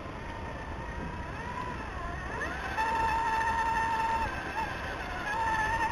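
Electric motor and gearbox whine of a radio-controlled six-wheel scale truck crawling up wooden steps. The whine rises in pitch about two and a half seconds in, holds steady, dips briefly and comes back near the end.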